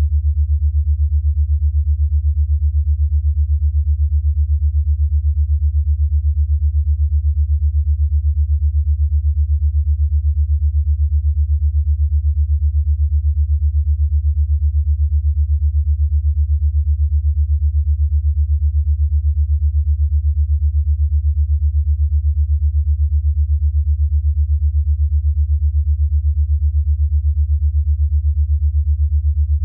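A single low, steady synthesized tone with a fast, even pulse in its loudness: an 8 Hz alpha brainwave-entrainment tone.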